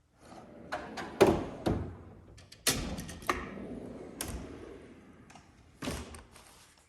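Steel drawers of a Snap-on toolbox sliding on their runners and shutting with a series of sharp metal clunks, the loudest about a second in.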